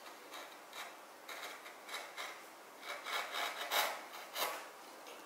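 Bench chisel paring along the edge of a small wooden piece held in the hand: a series of short scraping strokes, busiest and loudest about three to four and a half seconds in.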